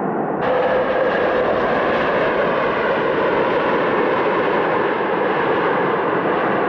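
Airliner jet engine noise: a steady rushing sound that changes abruptly about half a second in, with a faint whine briefly after the change.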